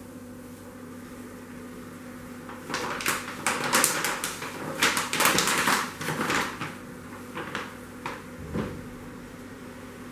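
A large sheet of paper rustling and crackling as it is pulled and slid across a cutting table. The sound comes in a dense run of bursts lasting about four seconds, then a few lighter scuffs and one dull thump, over a steady electrical hum.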